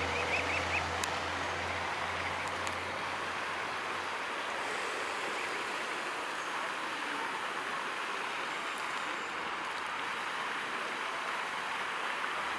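Steady rush of running water, even throughout, with a couple of faint clicks in the first few seconds.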